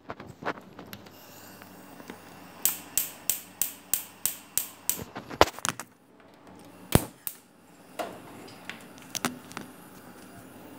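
A steel cooking pot handled and set on a gas stove, knocking against it, then a run of sharp evenly spaced clicks, about three a second for a couple of seconds, from the stove's igniter being sparked, followed by a few separate louder knocks.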